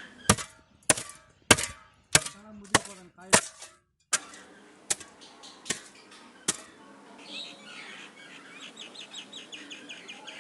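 A digging tool striking into the ground to dig a pit, in regular strokes about every half-second, pausing, then three more strikes. Near the end comes a faster run of faint, high, evenly repeated scraping strokes.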